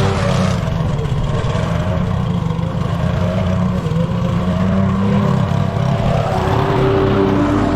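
Petrol lawn mower engine running steadily under load; a higher hiss over it drops away about half a second in.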